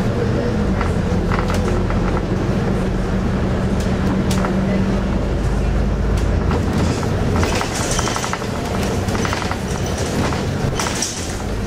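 Bus engine and road rumble heard from inside the passenger cabin, with clicks and rattles from the bus's fittings. The engine note drops away about halfway through.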